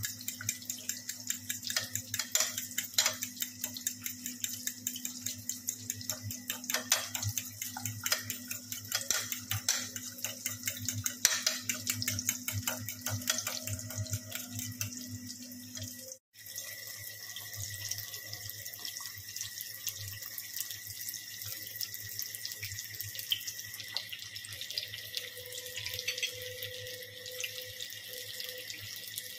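A fork beating egg mixture in a ceramic bowl, with rapid irregular clinks against the bowl over a low hum. After a cut about halfway through, breaded chicken burger patties sizzle steadily in hot oil in a frying pan, a constant hiss with fine crackling.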